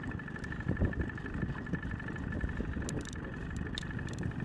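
Boat motor running steadily at trolling speed: a low rumble with a steady high whine above it, and a few light clicks about three seconds in.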